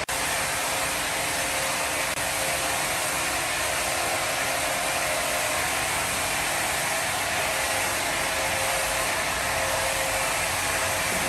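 Woodworking machinery running steadily: an even rushing motor-and-air noise with a faint steady hum.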